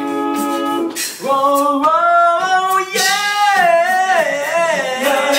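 A cappella vocal group singing: backing voices hold a sustained chord, then a lead voice sings a gliding melody over held harmonies from about a second in.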